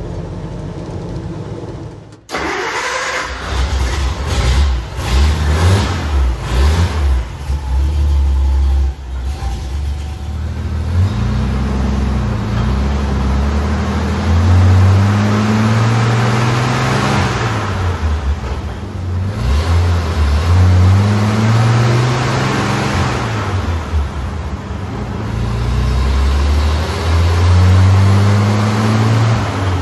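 Dodge M37's six-cylinder flathead engine running hard on a chassis dyno, revving up and dropping back several times in a power run.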